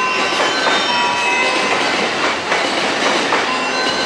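Electric train rolling slowly along station track. The wheels give off overlapping high squeals and a few irregular clicks over rail joints.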